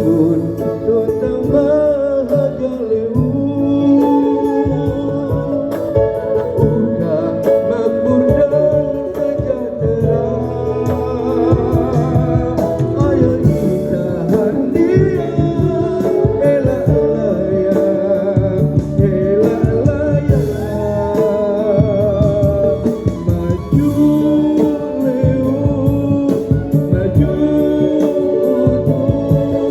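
Background music: a song with a singing voice over instrumental accompaniment and a steady beat.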